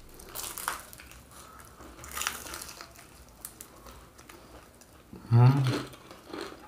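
Bites into crisp fried pastel crust, crackling in two short bursts in the first half, with chewing and paper crinkling. A short voice sound comes about five seconds in.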